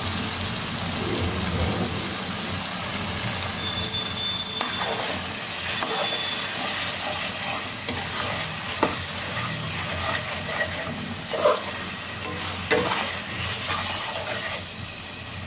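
Onion-tomato masala frying in oil in a metal kadai, sizzling steadily while a spatula stirs and scrapes it round the pan, with a few knocks of the spatula against the metal in the second half. The masala is being fried down until the oil separates.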